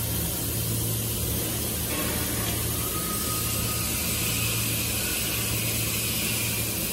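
Steady factory-floor machinery noise: a constant low hum under an even hiss, the hiss rising a little about two seconds in.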